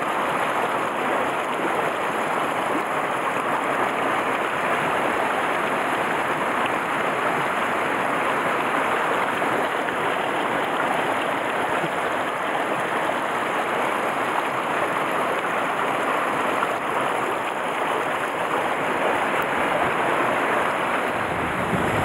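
A narrow mountain stream rushing steadily over rocks and small cascades.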